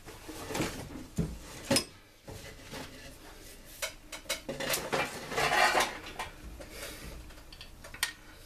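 Metal engine parts and hand tools clinking and clattering on a workbench during an engine teardown: single knocks scattered through, with a busier run of clatter in the middle.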